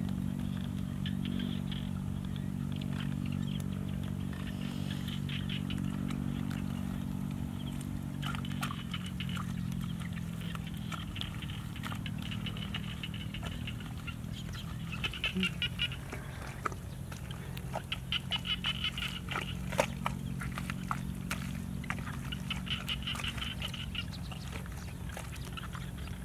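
Hands digging and squelching through wet mud, with scattered short clicks and knocks. A steady low motor drone runs underneath, and about halfway through bursts of high chirping calls, like frogs, come in again and again.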